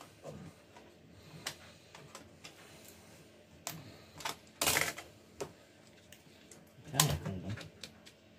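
Plastic clicks and taps from a screwdriver and hands working on a laptop's plastic underside and drive bay. There is a louder scraping rustle about halfway through and a sharp knock about seven seconds in, as parts are lifted out and set down.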